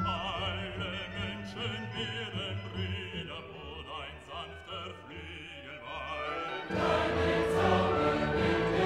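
Background classical music with a singing voice wavering in vibrato. The music becomes suddenly louder and fuller about seven seconds in.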